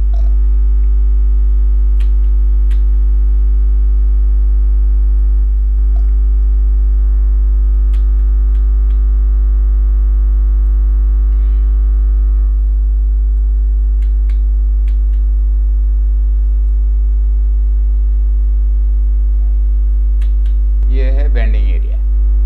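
Loud, steady electrical mains hum, a low buzz with many overtones, with a few faint clicks scattered through it.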